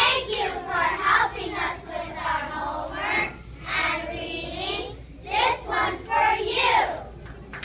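A group of young children singing together, in phrases with short breaks; the singing stops just before the end.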